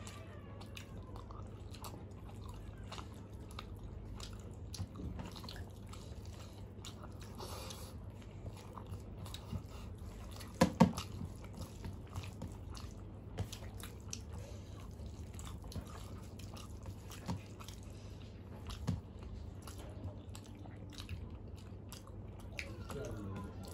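Close-miked eating sounds: chewing and soft mouth clicks as two people eat rice and curry by hand from steel plates, with a few louder clicks over a steady low hum.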